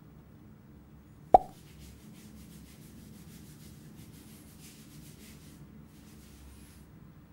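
A single sharp pop with a short ring just over a second in, then fast, scratchy rubbing of hands scrubbing lathered hair, which stops shortly before the end.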